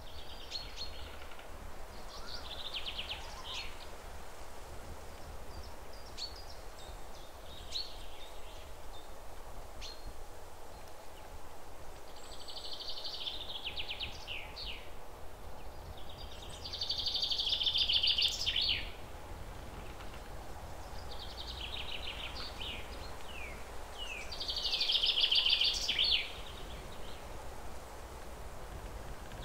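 Birds singing: short phrases of rapid high chirps and trills every few seconds, the loudest about two-thirds of the way in and again near the end, over a low steady hum.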